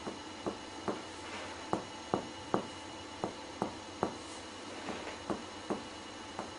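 Finger-on-finger chest percussion: short dull taps of a striking finger on a pleximeter finger laid on the chest wall, coming in groups of three at about two and a half a second with brief pauses as the finger is moved. The examiner reads the note as the normal clear pulmonary resonance over the lungs.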